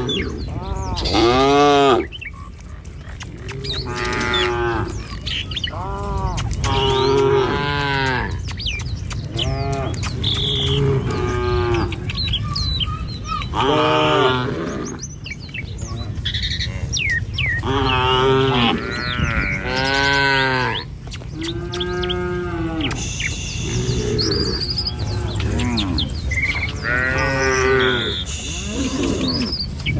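A herd of cattle mooing again and again, many separate calls of about a second each, some overlapping, over a steady low rumble.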